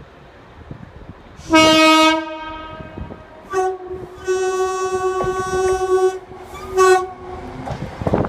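Diesel locomotive's two-tone air horn sounding: one long low note, then a short blip, a long blast and a short blast on the higher note.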